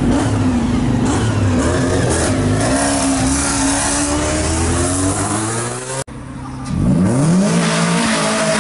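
Car engines revving and accelerating away as cars pull out onto the road, the engine note rising steadily. After a brief break about six seconds in, another car accelerates hard, its note climbing steeply.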